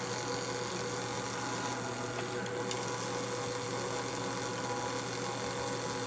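Steady electrical hum with several constant tones from running motor electronics, unchanging throughout, with a couple of faint clicks about two and a half seconds in.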